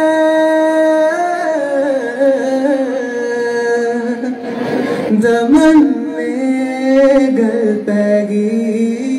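A man singing into a microphone in long held notes that slide from one pitch to the next, with a quick wavering run about five seconds in.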